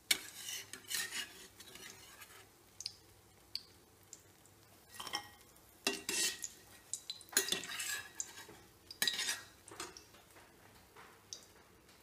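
Metal spoon scraping and clinking against a wok as fried chicken kabab pieces are scooped out of the oil, in irregular short clusters of scrapes and clinks.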